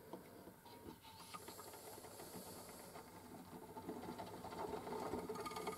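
Spring-wound gramophone motor starting to run after a few light clicks, its governor spinning up with a faint whirr and gear chatter that grows louder over the last couple of seconds. The governor's brake-pad lever has just been bent to slow a motor that was running too fast.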